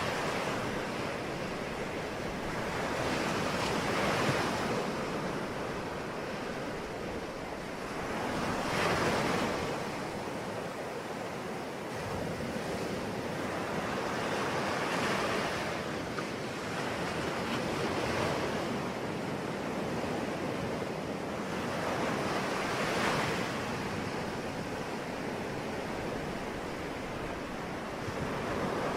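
Ocean waves breaking and washing on a shore, a steady surf with a swell rising and falling every four to five seconds.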